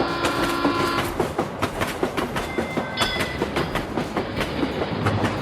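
Train wheels clattering over rail joints in a rapid, even clickety-clack rhythm. A steady held tone cuts off about a second in.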